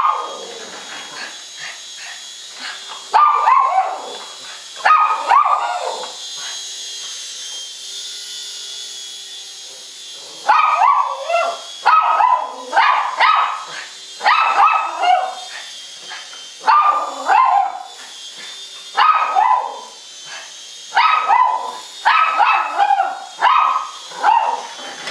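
Small dog barking in short, sharp yaps, a few about three and five seconds in, then barking again and again from about ten seconds on. Under the barks runs the steady high whine of a toy RC helicopter's small electric motor.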